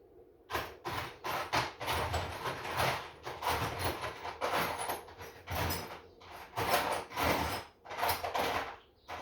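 Irregular scraping and clattering, several short scrapes and knocks a second, as tools and metal parts are shifted and rummaged through.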